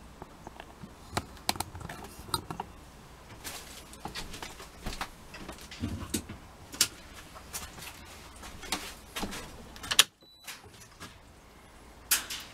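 Handling noise: scattered clicks, taps and knocks of objects being handled and the camera being moved, with a louder sharp knock about ten seconds in, followed by a brief moment of dead silence.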